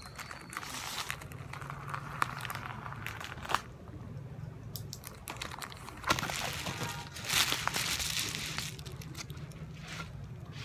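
Plastic mailer pouch and bubble wrap crinkling and rustling as they are handled and opened, with sharp crackles throughout. The crinkling is loudest in the second half.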